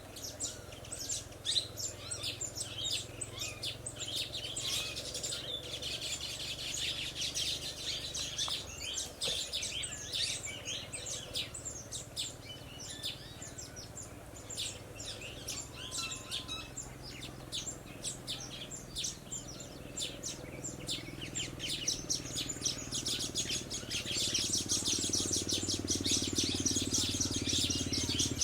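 Baya weavers chattering: a dense run of rapid, short, high chirps from many birds at once, busiest near the end.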